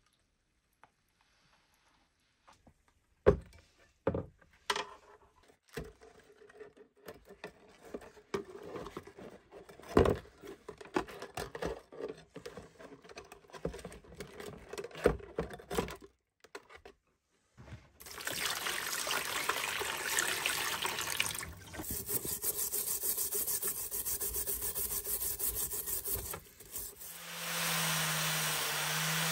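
Wet clinks, knocks and scraping as a sludge-coated iron horseshoe, just out of an electrolysis rust-removal bath, is handled on a metal tray. Then a steady rush of water for several seconds. Near the end a small angle grinder clamped in a vise starts up and runs steadily.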